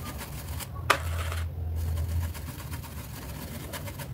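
Paintbrush scrubbed in small circles over fabric stretched on a board: a steady low rubbing rumble with faint scratching, and one sharp click about a second in.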